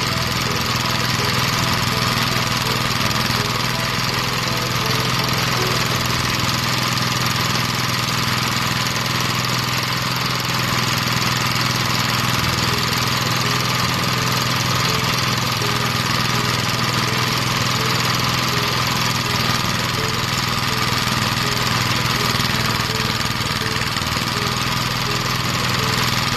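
Rice thresher running steadily under its engine, a continuous even drone with a constant hum.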